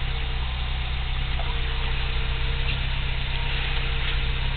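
Toyota 22RE 2.4-litre four-cylinder engine idling steadily. The owner suspects it of a misfire, heard as occasional pops in the exhaust, with a slight fluctuation in idle speed.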